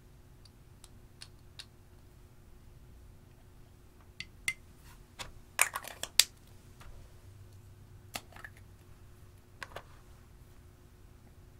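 Scattered light clicks and taps as eyeshadow is scraped out of a small plastic cosmetic pot with a stick and lands in glass dishes, with a quick run of sharper taps about halfway through.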